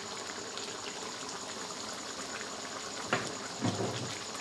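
Chicken hang le curry simmering in a wide pan on a gas stove: a steady bubbling hiss. A sharp click about three seconds in, followed by a brief low knock.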